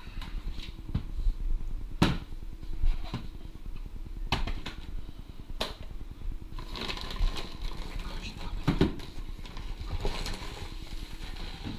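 Household handling noise: plastic containers and a chair being knocked and moved, with a few sharp separate knocks and then a rougher rustling clatter in the second half.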